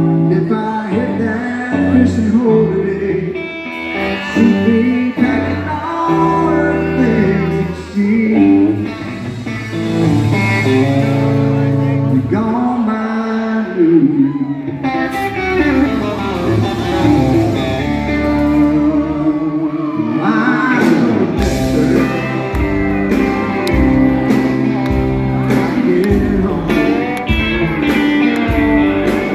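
Live country music heard from among a concert audience: a man singing with guitar accompaniment, with a steady beat coming in about two-thirds of the way through.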